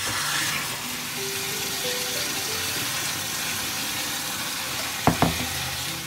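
Mango and yogurt shake pouring into a glass of ice cubes: a steady splashing hiss, with two sharp clinks about five seconds in.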